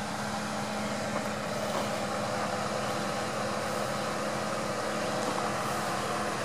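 Pickup truck engine idling nearby: a steady low hum over an even hiss, unchanging throughout.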